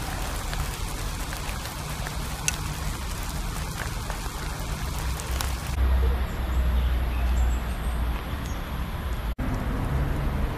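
Rain falling as a steady fine hiss with a few sharp drop hits. About six seconds in the sound changes abruptly to a deep, louder rumble.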